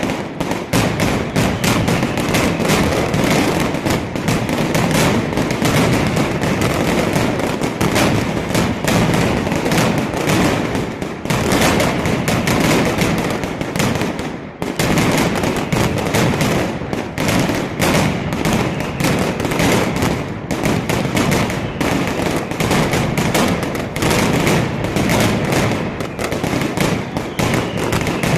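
Mascletà firecrackers going off in a dense, unbroken barrage of rapid loud bangs, with a brief lull about fourteen seconds in.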